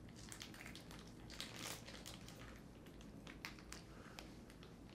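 Near silence with a few faint crinkles and ticks of snack packaging being handled.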